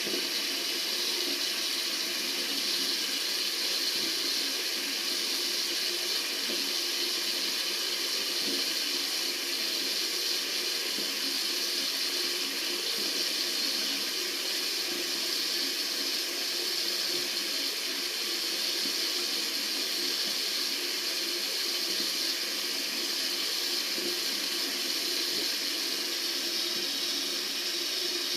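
Tap water running steadily from a faucet, an even, unbroken rush of water.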